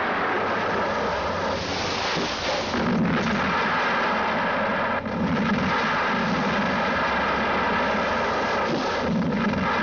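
Explosions going off in the bush: a continuous loud rumbling din with several heavier blasts swelling out of it.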